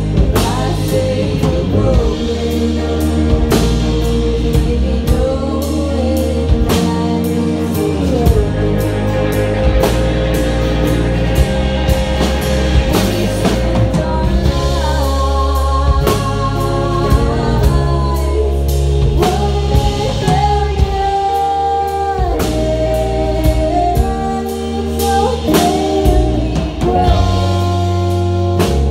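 Live band playing: strummed acoustic guitar, electric bass and drum kit, with a held, bending melody line over the top.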